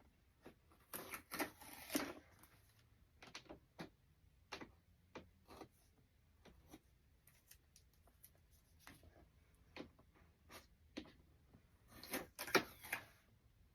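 Light, irregular clicks, taps and rustles of a plastic vacuum sealer being handled, with denser flurries about a second in and near the end.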